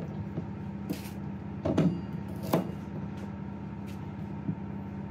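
Chef's knife cutting a carrot on a cutting board: four separate knocks of the blade hitting the board, over a steady low hum.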